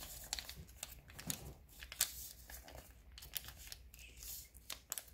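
Sheet of origami paper being folded and creased by hand against a wooden tabletop: soft rustling and crinkling with scattered short sharp ticks as fingers press the folds flat.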